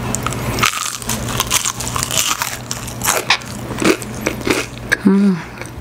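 Biting into and chewing crispy battered Korean fried chicken, with the coating crunching in many quick, irregular crackles.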